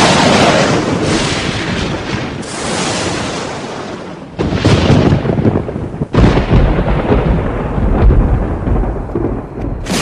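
Thunder: a sudden crack with a long rumbling decay, then two more loud claps about four and six seconds in, each trailing off into rumble.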